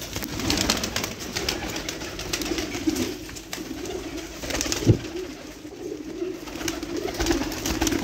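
Domestic pigeons cooing continuously, a low wavering warble, with rustling handling noises and one sharp knock about five seconds in.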